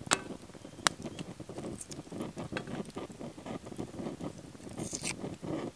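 Knife slicing a sausage by hand over a thin titanium frying pan, with a steady patter of small cutting and scraping ticks. Two sharp clicks in the first second, as the blade or a dropped slice hits the pan.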